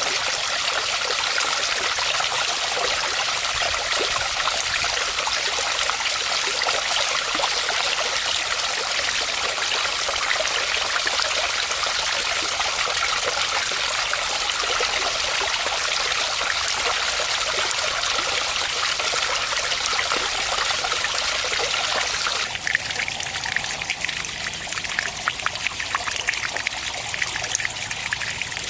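Water from a garden fish pond's waterfall splashing and trickling steadily. About twenty-two seconds in, the sound changes abruptly to a thinner trickle with separate drips and splashes.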